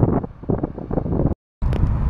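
Passenger train passing close, its rumble mixed with wind buffeting the microphone. About one and a half seconds in the sound drops out abruptly for a moment, then comes back as a steady low wind rumble.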